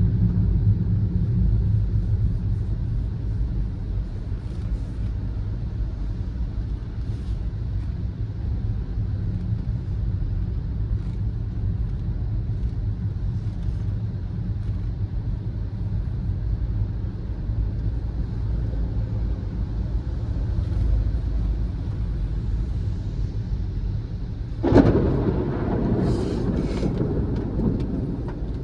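Car driving in the rain: a steady low rumble of engine and tyres on the wet road. Near the end comes a sudden, louder rush of noise that lasts a few seconds.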